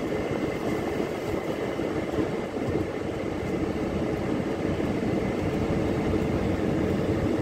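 Engine of a large conveyor machine running steadily, with strong wind buffeting the microphone in a snowstorm, gusting unevenly at the low end.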